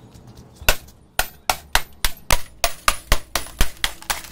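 A CRT television's glass screen being struck over and over, punching holes through the face glass: sharp cracking blows, a few faint clicks at first, then a steady run of about three to four blows a second.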